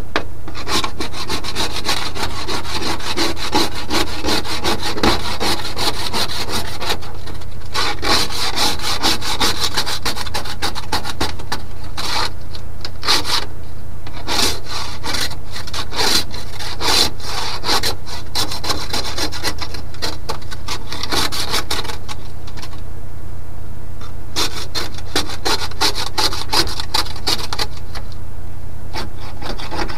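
Plastic ice scraper scraping a sheet of ice off the truck's windows in quick repeated strokes, heard from inside the cab, pausing briefly a few times. Underneath, the 1982 GMC C30's engine runs steadily.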